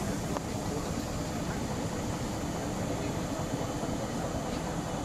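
A vehicle engine idling, a steady rumble with a constant hiss over it.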